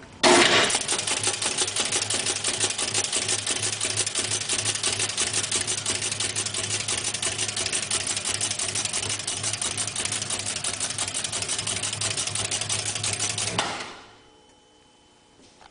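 Automatic EI lamination inserting machine running, a rapid, even mechanical clatter as it feeds and inserts steel E and I laminations into a transformer bobbin, over a low steady hum. It starts suddenly when switched on and winds down about 14 seconds in.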